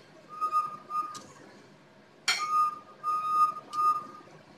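Metal tongs clinking and scraping against a metal oven tray and rack. They give a series of short ringing notes all at the same pitch, with one sharp clink a little past halfway.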